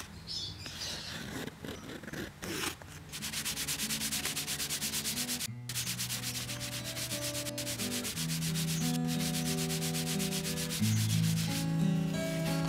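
A cloth rubbed briskly over vegetable-tanned leather, buffing the wallet's surface: a few irregular scratchy strokes at first, then a quick, even back-and-forth rubbing. Acoustic guitar music fades in under it and is louder near the end.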